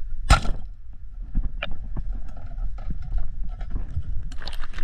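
Speargun fired underwater: one sharp crack about a third of a second in, as a pollack is speared, followed by scattered small knocks and clicks over a low water rumble. Splashing starts near the end.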